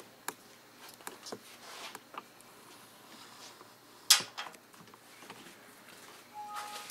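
Faint scattered clicks and light knocks, with one sharp click about four seconds in and a short two-tone beep near the end.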